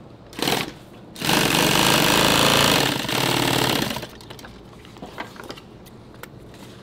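Industrial sewing machine stitching through camouflage fabric: a short burst of stitches about half a second in, then a fast, steady run of about three seconds that stops about four seconds in, followed by faint handling clicks.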